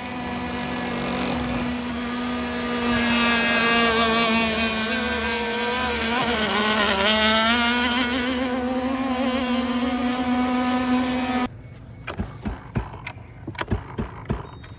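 Gas RC boat's two-stroke engine running at speed with a steady, high-pitched buzz, louder a few seconds in and dipping briefly in pitch as the throttle changes. It cuts off suddenly near the end, leaving a few scattered clicks and knocks.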